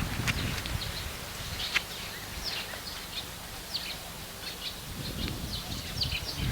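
Small birds chirping: many short, quick notes scattered throughout, over a low rumble.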